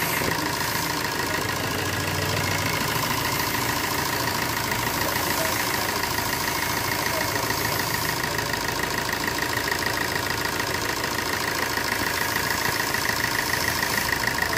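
Maruti Suzuki Swift's 1.3-litre DDiS four-cylinder turbo-diesel engine idling steadily, heard close up in the engine bay, running again after a fresh oil, oil filter and diesel filter change.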